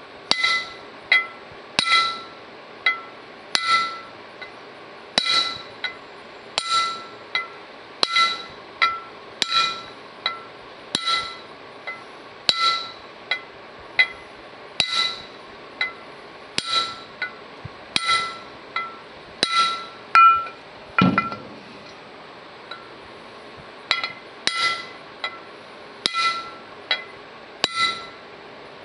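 Hammer tapping a copper punch to drive a new bushing into a John Deere 4400 combine's center drive pulley: steady light taps a little over one a second, each with a short metallic ring. About two-thirds of the way through comes one heavier blow, then a short pause before the tapping resumes.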